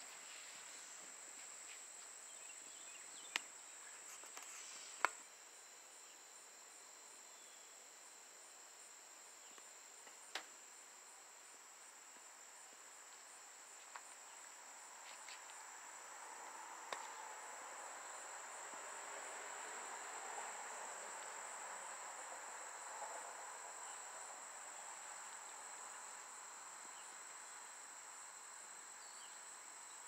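Faint, steady high-pitched insect trill, with a few sharp clicks, the loudest two in the first five seconds.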